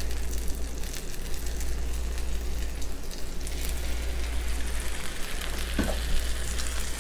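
Egg-soaked brioche slices frying in browned butter in a nonstick pan: a steady sizzle with crackle. The sizzle grows brighter about three and a half seconds in as a second slice is laid in, and there is a brief knock near the end.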